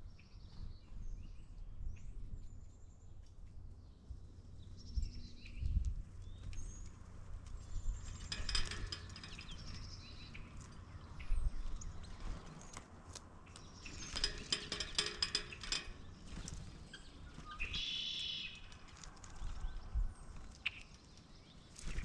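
Wild birds calling around a backyard feeder: scattered high chirps and short whistled glides, two bursts of rapid rattling a couple of seconds each, and a harsh call near the end, over a low rumble.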